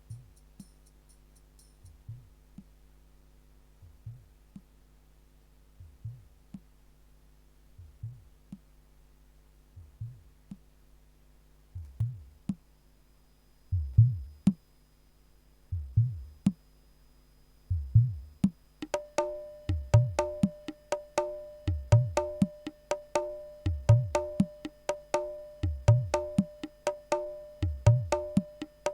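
Sound-check music track: deep bass drum hits about every two seconds, getting louder, then about two-thirds of the way in a quick pitched wood-block-like percussion pattern joins over them.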